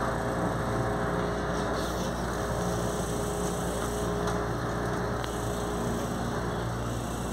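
Inside an electric commuter train car: a steady mechanical hum with a few steady low tones, from the train's running equipment.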